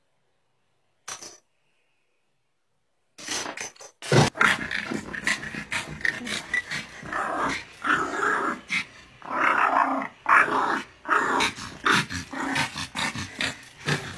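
A small dog growling in a long run of short, loud bursts, starting about three seconds in. Before that it is almost silent, apart from one brief sound about a second in.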